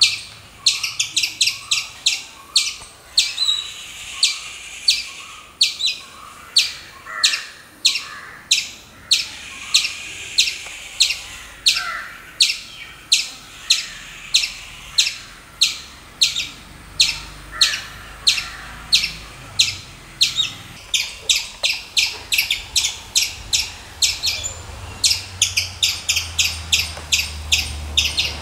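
Squirrel calling over and over: short, high, sharp calls at about two a second, coming faster near the end.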